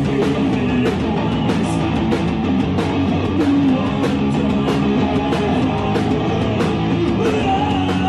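Rock band playing electric guitar, bass guitar and drums, with drum hits on a steady beat.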